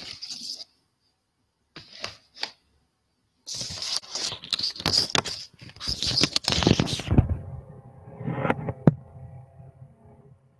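Irregular bursts of rustling with many sharp clicks, picked up through an open microphone in an online class; the busiest, loudest stretch comes in the middle, then fades to fainter noise.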